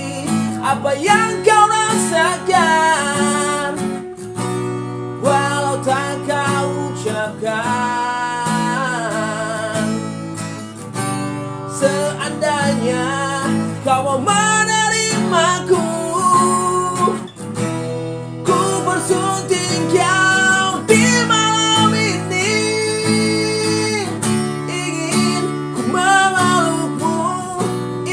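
Background song with plucked acoustic guitar and a singing voice carrying the melody.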